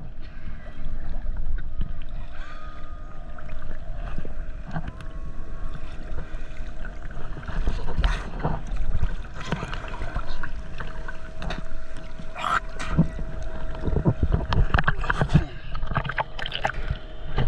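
Seawater sloshing and splashing close to the microphone, with irregular sharp splashes and a faint steady hum underneath.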